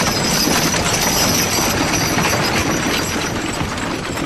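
A horse-drawn stagecoach going by: a steady clatter of rattling wheels and bodywork mixed with horses' hooves.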